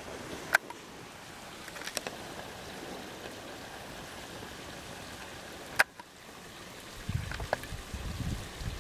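Steady rushing of flowing water from a stream. A few sharp single clicks sound over it, and a low rumble comes in near the end.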